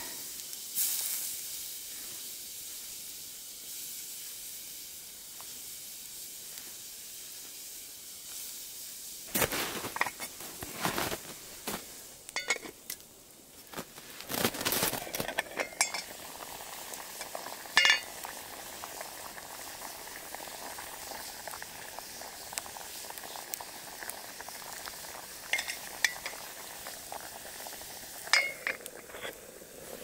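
Campfire pot of water with cut potatoes coming to the boil, hissing and sizzling steadily. From about nine seconds in come scattered metal clinks and knocks of the cooking pot and utensils.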